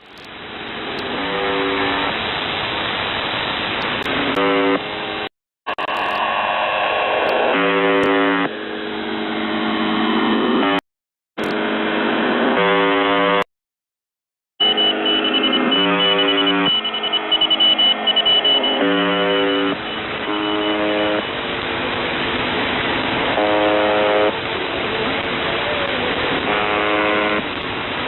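UVB-76 'The Buzzer' shortwave transmission heard through a radio receiver: repeated buzz tones, each about a second long, sounding every couple of seconds over hiss and static. Gliding whistles from interference run under the first half, a steady high whistle sits in the middle, and the signal cuts out abruptly three times.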